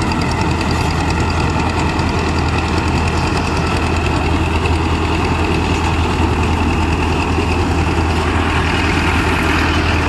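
Farmtrac 6055 tractor's diesel engine running steadily while it drives a Panesar tractor-mounted combine harvester at work, its threshing and blowing machinery running with it in one steady drone.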